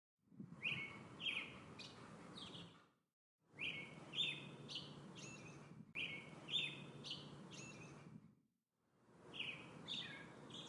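Birds giving short, sharp chirps, three or four falling notes close together, over a faint low background rumble. The sound cuts to dead silence three times, about three, six and eight and a half seconds in.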